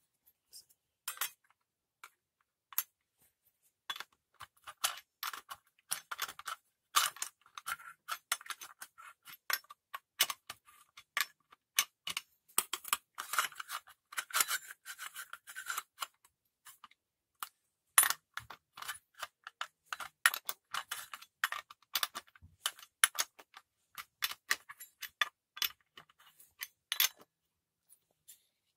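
Metal clinks, taps and scrapes of hand tools on a brushcutter's toothed steel cutting disc, its nut and hub as the disc is fitted. The clicks come irregularly throughout and run densest, with a light ring, in the middle.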